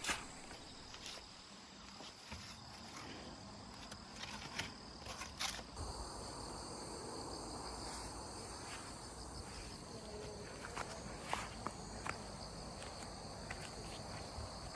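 Footsteps on an outdoor path, irregular soft steps, with insects chirping steadily at a high pitch that gets stronger about six seconds in.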